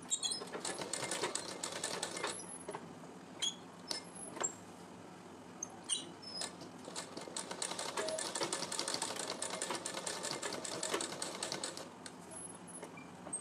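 Sewing machine stitching fabric in two rapid runs, a short one at the start and a longer one of about five seconds from about halfway, with a few separate clicks in the pause between.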